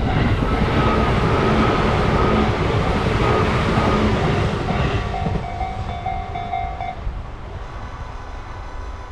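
An electric train of the Tobu Isesaki Line passes over a level crossing, loud for about five seconds and then fading as it moves off. The crossing's warning bell keeps up its repeating ding and stops about seven seconds in, once the train has cleared.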